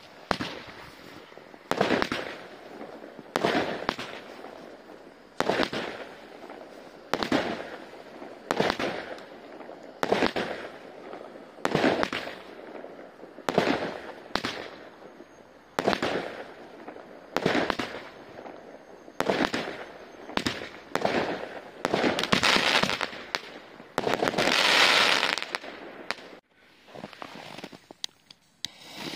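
A Hestia 20 mm consumer firework cake firing shot after shot, roughly one every one to two seconds, each a sharp report that fades into a short crackle. Near the end comes a denser crackling burst lasting about two seconds, then the firing stops.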